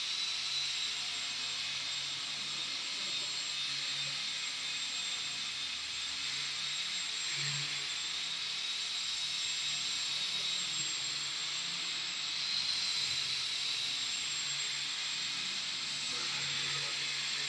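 Small electric motor and propeller of an indoor control-line model plane running steadily in flight, a continuous high-pitched whine that holds an even level.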